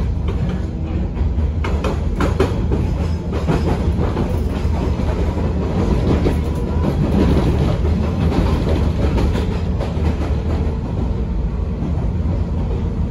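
Running sound of a JR West 113 series electric motor car with MT54 traction motors, heard on board: a steady low rumble of motors and bogies while the train runs at speed, with wheels clicking over rail joints, most clearly about two seconds in.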